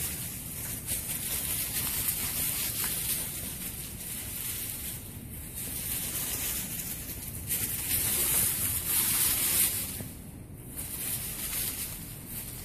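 Dry fallen leaves rustling and crunching under two dogs running and playing through them. The crackly rustle swells and fades, dipping briefly about halfway through and again near the end.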